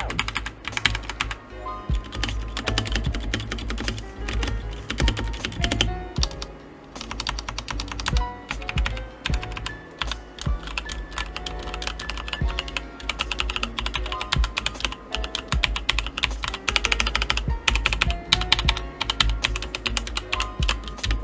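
Fast, continuous typing on an E-YOOSO K-620 mechanical keyboard with brown switches, a dense run of key clacks.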